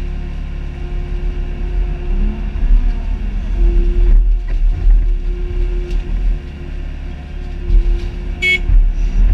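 Mini excavator's diesel engine running under hydraulic load as the machine digs and swings, its note swelling and easing with the work. A brief high squeal near the end.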